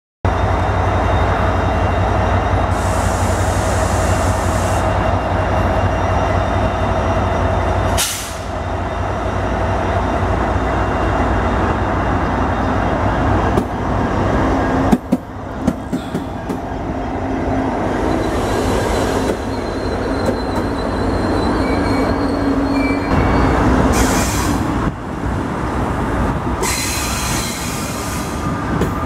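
Vossloh Euro 4000 diesel locomotive running at the platform with a steady low rumble and a held droning tone, then the train's cars rolling along the rails with a few sharp knocks and thin high wheel squeals.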